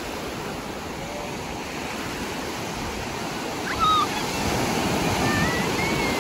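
Sea surf breaking and washing through the shallows, a steady rush of water that swells louder from about four seconds in as a wave comes through.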